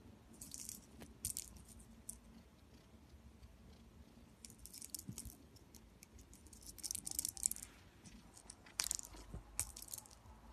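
A kitten playing with a small toy ball on a fabric sofa: quick bursts of high rattling and scratchy clicking come in several separate clusters as it bats and pounces on the ball.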